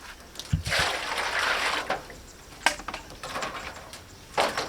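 Water being poured and splashing for about a second, followed by a few sharp clicks and knocks of handling.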